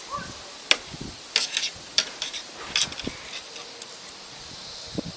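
Foam grip being worked off a fishing rod blank: a handful of short, sharp scrapes and clicks at uneven intervals.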